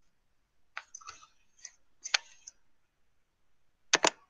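A handful of sharp, irregularly spaced clicks of computer keys being pressed, the loudest a quick pair near the end.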